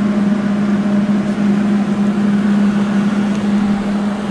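Steady machine hum: one low droning tone under a noisy whir, holding level with no change in pitch.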